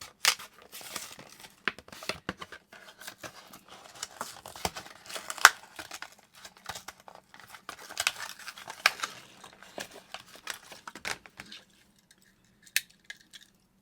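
A blister-carded diecast toy car being opened by hand: the plastic blister crinkling and crackling and the cardboard card tearing, with sharp irregular snaps and clicks. It dies away about three-quarters of the way through, with a last click or two.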